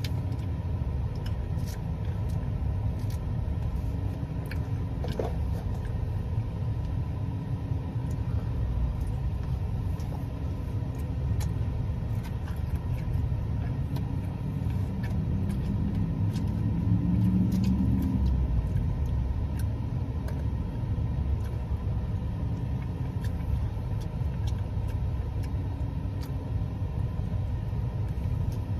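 Chewing and mouth clicks from eating a roast beef sandwich, over a steady low rumble. A low hum swells for a few seconds past the middle.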